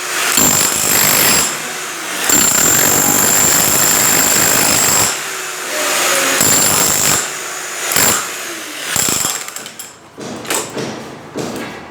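Power tool such as a breaker or jackhammer running in loud spells of one to three seconds with short pauses between them, a steady high whine riding on each spell. After about nine and a half seconds it stops, leaving only scattered quieter knocks.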